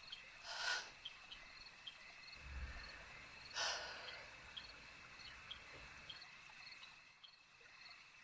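Night-time nature ambience: a steady insect trill with regular faint chirps. Two short rushes of noise about three seconds apart are the loudest moments, with a low rumble between them.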